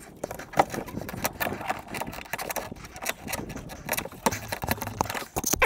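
Irregular small clicks, taps and scrapes of hands working the hose fittings and wiring on top of a pickup truck's fuel tank sending unit.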